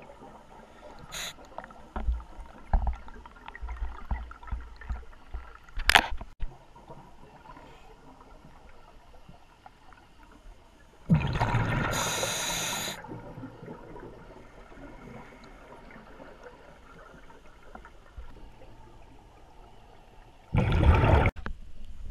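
Underwater and surface diving sounds: low knocks and water movement in the first few seconds, then a loud gurgling rush of a diver's exhaled bubbles lasting about two seconds midway, and another short gurgling burst near the end.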